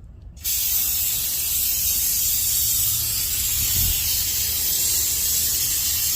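Aerosol brake cleaner spraying in one continuous hiss that starts about half a second in, flushing caked dust out of the rear wheel hub.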